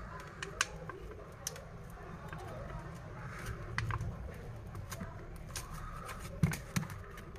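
Thin pry tool working under the edge of a phone's glued back glass, separating it from the frame: scattered small clicks, taps and scrapes, the sharpest about six and a half seconds in.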